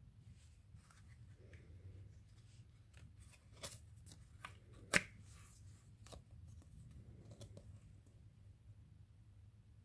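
Card label being worked off a plastic Mjölner mousetrap by hand: faint rustling and crinkling of card with scattered small plastic clicks, and one sharp click about halfway through.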